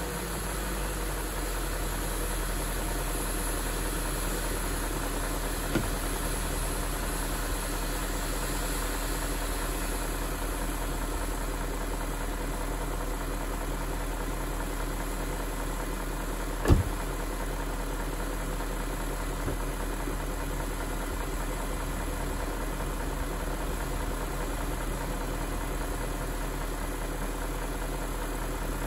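BMW E38 740i's 4.4-litre V8 idling steadily while warming up. A faint click comes about 6 seconds in, and a sharper single knock about 17 seconds in.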